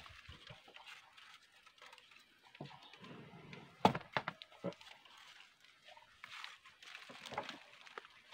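Scattered knocks and rustles in a wooden cattle pen as a cow moves close to the microphone. About four seconds in there is a quick cluster of sharp knocks, the loudest sound.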